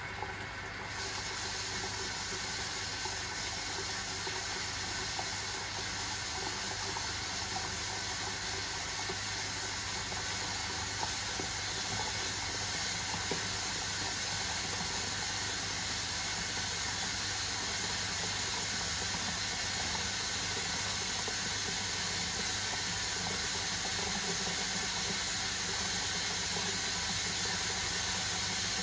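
Miele WS 5405 washing machine taking in water: a steady hiss of water rushing in through the inlet to fill the drum.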